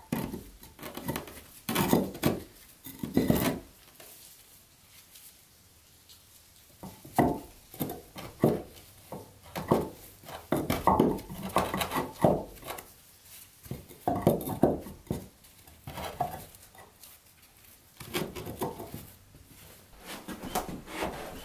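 Flat fieldstones being shifted and fitted together on a plywood subfloor to form a stone hearth: irregular clunks, knocks and scrapes of stone against stone and wood, in clusters with short pauses between.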